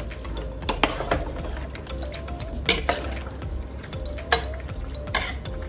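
A perforated metal ladle stirring a thick, wet chicken masala in a large metal pot, scraping and knocking against the pot's side with about half a dozen sharp clinks, over background music.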